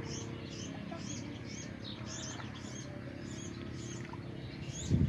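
A small bird chirping over and over, short high falling calls about two to three a second, over a steady low hum.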